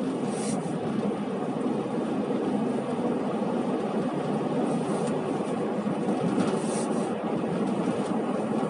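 Very strong wind blowing over the microphone: a steady, dense rushing noise that stays loud throughout.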